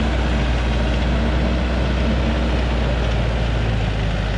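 Heavy vehicle engine running loud and steady at a constant speed, with a slight change in pitch near the end.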